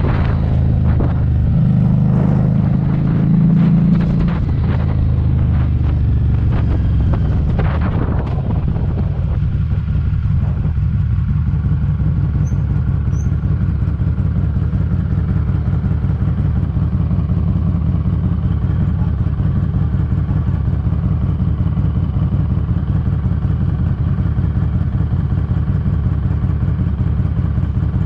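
Harley-Davidson Street 500's V-twin running through an aftermarket TAB Performance exhaust, with heavy wind buffeting on the microphone for about the first eight seconds. The wind then drops away and the engine runs on at a steady, even pace.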